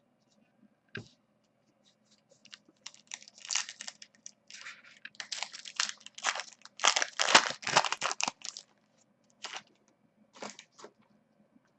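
Foil wrapper of a trading-card pack being torn open and crinkled: a run of crackling rips over several seconds, loudest a little past the middle, with a few single clicks before and after.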